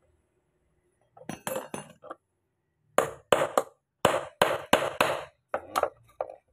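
Metal tool knocking and clinking against a scooter's starter motor housing as the motor is worked loose: a few lighter knocks early, then a quick run of about nine sharp strikes.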